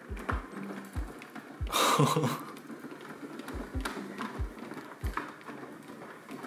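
Large cat wheel turning under a walking cat, with soft, irregular low thuds and one louder rushing noise about two seconds in, over light background music.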